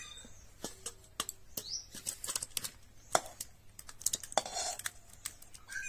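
Metal spatula scraping and tapping against a wok (kadai) as thick periwinkle curry is scooped out into a steel bowl: a scattered run of light, sharp clicks and taps.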